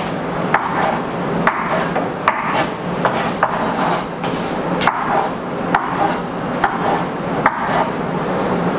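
Knife cutting peeled roasted red peppers into pieces on a wooden cutting board: irregular knocks of the blade against the board, roughly one a second.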